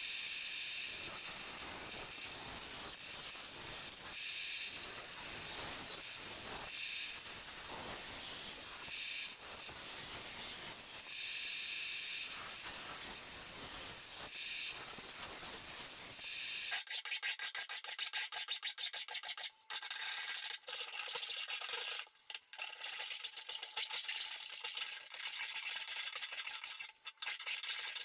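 Bandsaw running and cutting through a laminated wood paddle blank, a steady rushing noise. About two-thirds of the way in it switches abruptly to a hand plane shaving the paddle shaft, a thinner sound of rapid scraping strokes.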